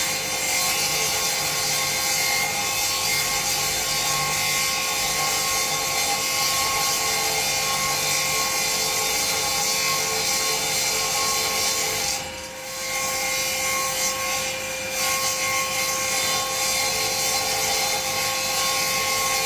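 Electric power saw cutting through wood, running steadily with a constant whine over the cutting noise, with a brief lull about twelve seconds in.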